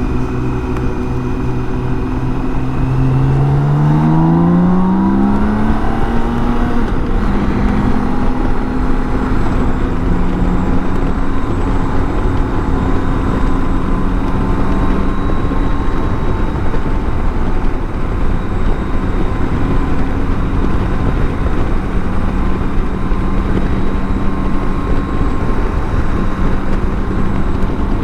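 BMW K1600 GTL's inline-six engine on the move: the revs climb from about three to six seconds in as the bike accelerates, then settle to a steady running note, under a constant rush of wind and road noise.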